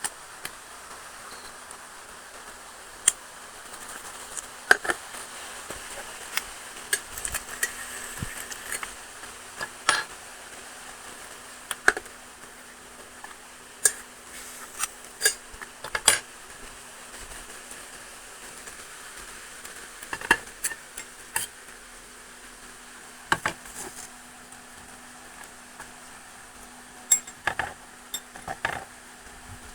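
Eggs frying in a stainless steel pan with a faint steady sizzle, while a metal utensil clinks sharply against the pan a dozen or more times at irregular intervals. A low steady hum lies underneath.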